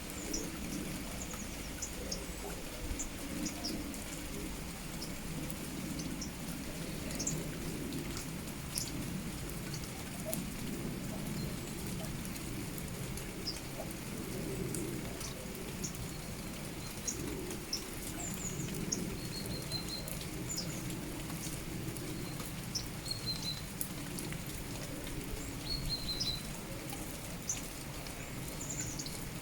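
Steady rain falling, with scattered drop ticks, while small birds give short high chirps and a few brief trills throughout.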